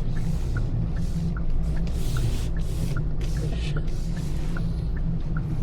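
Car running on the road, heard inside the cabin: a steady low rumble of engine and tyres with swells of hiss, and the indicator ticking evenly about two and a half times a second.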